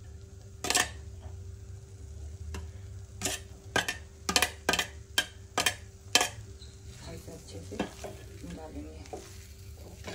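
A string of sharp utensil clinks, about eight in the first six seconds. Then a metal spatula stirs and scrapes mashed potato and green peas in a clay pot, over a faint steady hum.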